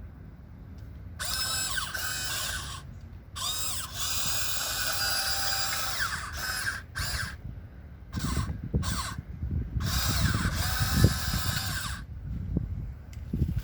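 Huina 1494 RC model excavator's small electric motors and gearboxes whining in repeated start-stop bursts as the boom, arm and bucket are worked, the pitch sliding up and down as each motor speeds up and slows. In the second half come low knocks and scraping thuds from the bucket digging, with one sharper knock near the end.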